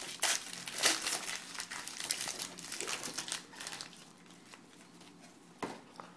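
Plastic trading-card pack wrapper crinkling as it is opened and handled. The crinkling is dense for about four seconds, then quieter, with a single sharp click near the end.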